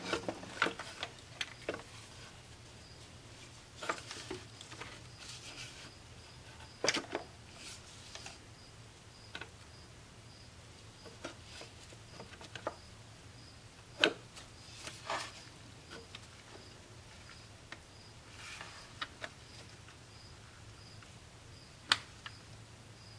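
Scattered light metallic clicks and knocks as the oil cooler assembly's metal hose and bracket are handled and pushed into position against the engine block, the sharpest knocks about a quarter, halfway and near the end. A low steady hum runs underneath.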